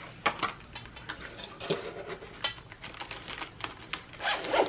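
Rummaging through a container of stored items: scattered light clicks, knocks and rustles, with a louder clatter near the end.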